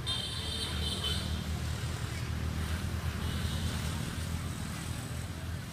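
Outdoor forest ambience: a steady low rumble, with a high buzzing call in the first second or so and a fainter one about three seconds in.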